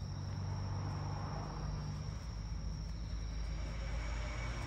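Insects chirping in a steady, high-pitched 'pii-pii' trill, over a low steady hum.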